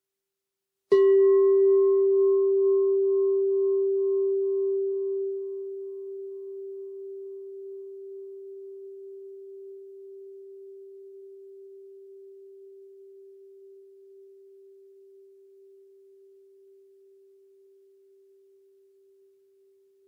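Singing bowl struck once about a second in, ringing with a steady low tone and a higher overtone that pulses as it rings, then fading slowly almost to nothing.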